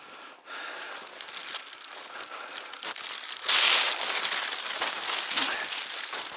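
Footsteps crunching in snow, with a louder swish of snow-laden spruce branches being pushed aside about three and a half seconds in.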